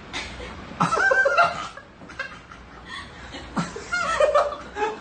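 A person laughing in two short bouts, the first about a second in and the second near the end.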